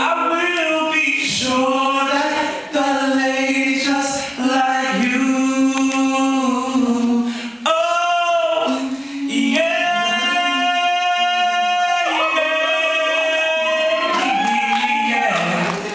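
Male vocal trio singing an R&B ballad a cappella into microphones, close harmonies under a lead voice. The lead holds one long note a little past halfway.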